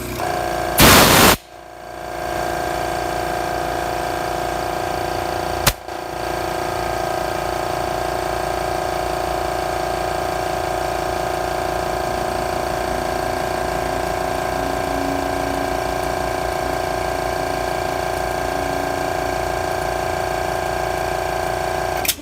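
MAX AK-7000E air compressor running steadily with a steady hum of several tones. About a second in there is a short loud hiss, then the running sound drops and builds back up; there is a sharp click near six seconds, and the compressor cuts off suddenly at the end.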